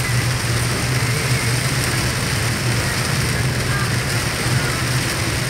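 Heavy rain pelting the roof and windshield of a moving car, heard from inside the cabin over a steady low drone of the engine and tyres on the wet road.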